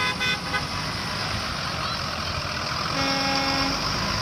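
A vehicle horn honks once, held for under a second, about three seconds in. A quick run of short beeping tones comes first. All of it sounds over a steady low rumble.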